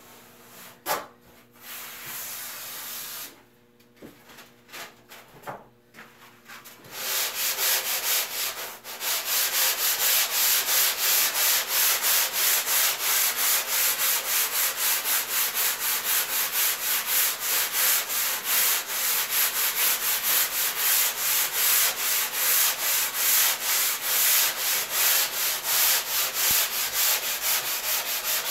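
Hand-sanding the bottom of a foam surfboard blank with a sanding block to shape channels: rhythmic back-and-forth scraping strokes, about two a second, starting around seven seconds in after a few light handling knocks.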